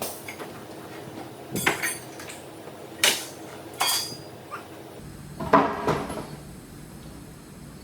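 A few separate sharp metallic clanks and knocks, about five spread over several seconds, the loudest a little past halfway.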